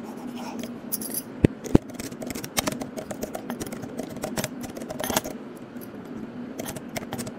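Computer keyboard keys clicking in an irregular run as text is typed, with two sharper clicks about a second and a half in, over a faint steady hum.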